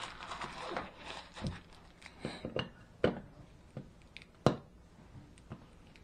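A plastic light-switch cover plate being handled and fitted over a toggle switch: soft rustling, then a run of small sharp clicks and taps, the loudest about four and a half seconds in.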